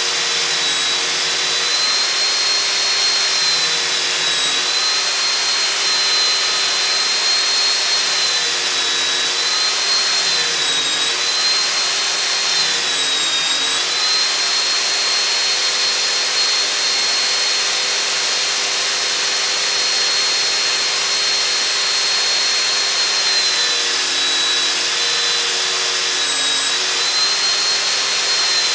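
Electric belt sander running with a steady whine and an abrasive hiss. Its pitch dips several times as a small piece of wood is pressed against the moving belt and the motor slows under the load.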